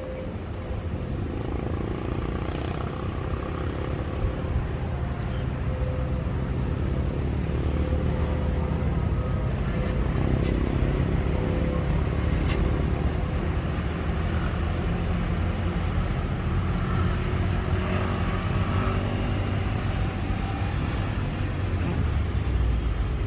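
Road traffic passing close by: motorcycles and cars going past over a steady low rumble.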